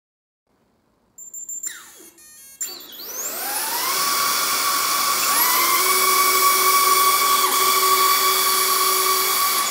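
Electric motors of a 3D-printed model hovercraft spinning up after a brief clatter of clicks. One whine rises in pitch and levels off about three seconds in. A second rising whine joins a couple of seconds later, and both then run steadily at a high pitch.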